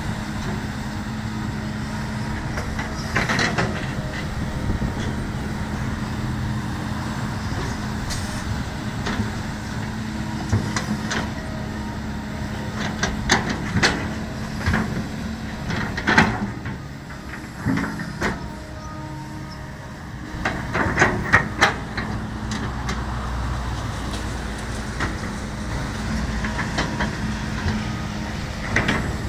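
Kobelco SK200 hydraulic excavator's diesel engine running steadily under work, with short sharp metal clanks and knocks from the digging gear, several of them in quick clusters.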